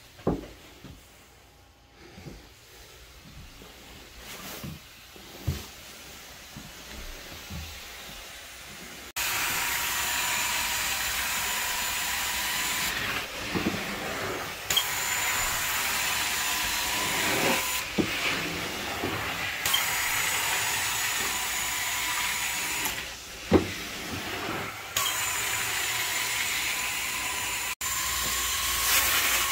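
Carpet extraction cleaner's wand sucking across carpet: a loud steady hiss of suction with a steady whine, which drops away briefly several times between strokes. Before it starts, about the first third is quieter, with a few light knocks as the wand is handled.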